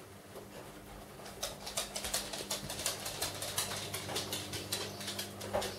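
Footsteps moving across a hard floor: a run of quick, irregular taps and clicks over a faint steady hum.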